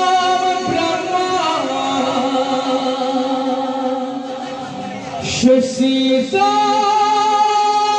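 Bhaona music through a PA system: a voice singing long, steady held notes over accompaniment. It softens briefly a little past the middle, then picks up again.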